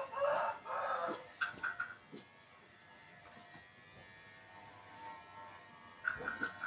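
Kemei KM-1986 electric hair clipper running steadily while shearing a sheep's fleece. A louder rough sound comes in the first two seconds, and quick clusters of short high chirps come about a second and a half in and again near the end.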